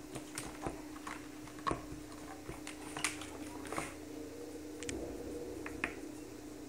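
Irregular clicks and taps from a cat scratcher track toy as a kitten bats its plastic ball and paws at the plastic track and cardboard pad, loudest about a second and a half in and again about three seconds in. A steady faint low hum runs underneath.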